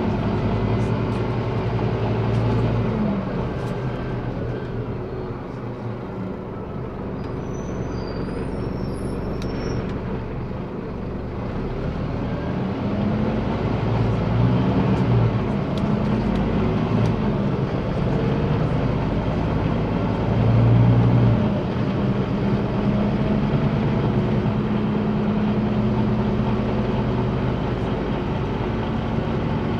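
Scania DC9 five-cylinder diesel engine of a city bus, heard from inside the cabin while driving. Its pitch rises and falls several times as the bus speeds up and slows with its ZF automatic gearbox, then holds a steady drone over road rumble in the last third.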